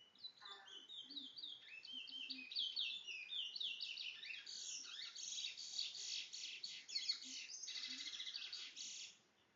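A towa-towa (large-billed seed finch) singing one long continuous song: quick slurred whistled notes at first, running into fast rapid trills from about halfway, and breaking off shortly before the end.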